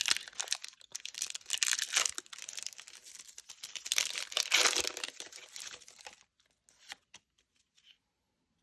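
Foil Pokémon booster-pack wrapper crinkling and being torn open, loudest about four to five seconds in. The crinkling stops about six seconds in, leaving a few faint clicks.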